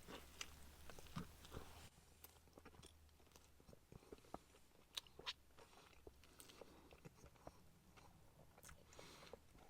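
Faint close-up chewing of a burger: soft wet mouth clicks and small crunches as it is chewed.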